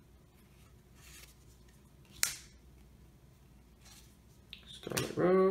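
Yu-Gi-Oh trading cards being slid and flipped through by hand, with faint rustles and one sharp card snap about two seconds in. Near the end a man gives a short, steady hum.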